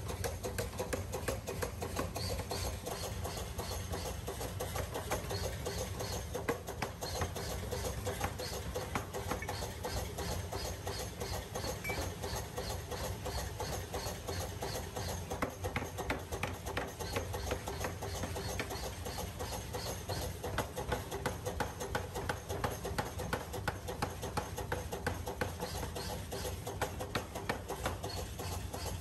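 Power forging hammer pounding a red-hot steel block held in tongs on its anvil: a rapid, steady run of blows over a constant low machine hum.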